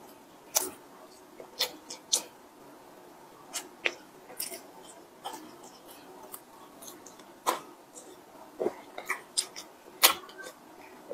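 Close-miked eating sounds: a soft bread bun torn apart by hand and chewed, heard as irregular sharp crackles and clicks, the loudest about ten seconds in.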